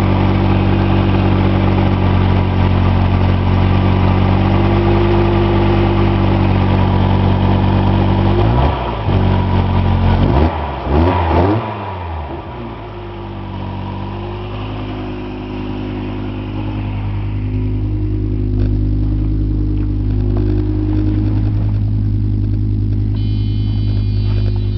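Audi 7A 2.3 20-valve five-cylinder engine idling, with a short rev rising and falling about nine seconds in before it settles back to a steady idle. The engine makes a strange rough noise from its front near the timing gear, which the owner likens to a chaff cutter.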